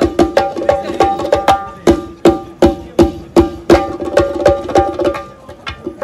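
Doira, an Uzbek frame drum, played solo in a fast rhythm: ringing strong strokes about three a second with quicker soft strokes between them, dropping to softer taps near the end.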